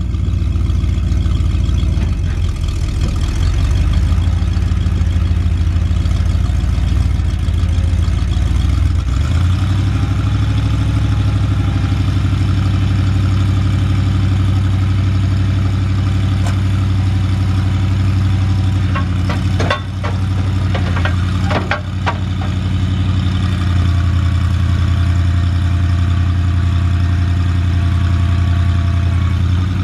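A 1973 Ford 750 truck's V8 gas engine idling steadily. A cluster of sharp clicks and knocks comes about two-thirds of the way through.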